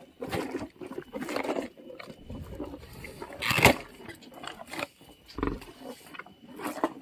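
Hippo chewing a mouthful of pumpkin, cabbage and carrot at close range: wet mashing and crunching in irregular bursts, the loudest a little past halfway, with some low rumbles.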